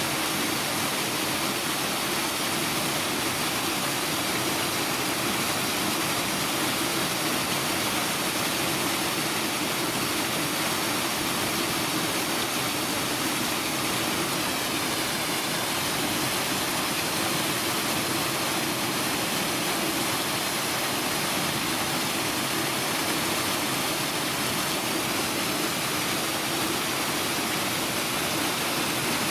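Steady, unbroken rushing noise, even across low and high pitches, with no breaks or separate events.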